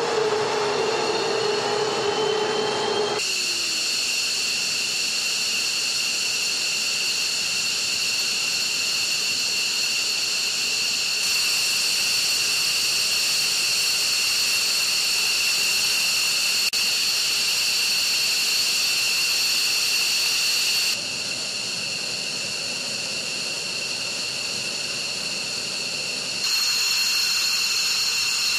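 F-15E Strike Eagle's twin F100 turbofan engines running on the ground: a steady high-pitched turbine whine over a hiss. It jumps in level abruptly a few times as the shots change.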